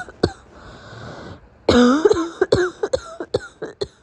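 A sick woman's morning coughing fit: one short cough, a breath drawn in, then a long hoarse cough followed by a quick run of about six shorter coughs.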